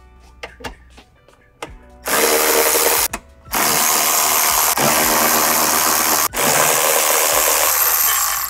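Cordless electric ratchet spinning, backing out a crossmember bolt, in three runs of about one second, three seconds and two seconds with short stops between. A few faint clicks come before it starts.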